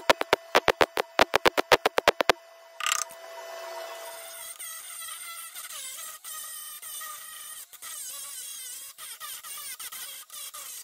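MIG welder laying short tack pulses in a rapid crackling series, about seven a second, on a steel rocker-panel repair for about two seconds. About four seconds in, a Milwaukee angle grinder starts and runs, grinding down the fresh welds, its whine wavering with the load.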